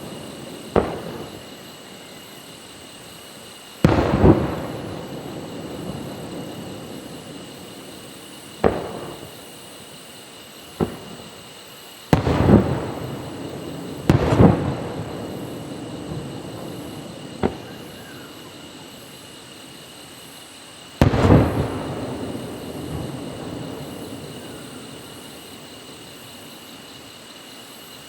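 Aerial fireworks shells bursting: about ten sharp bangs at uneven intervals, some in quick pairs, each trailing off in a long fading rumble.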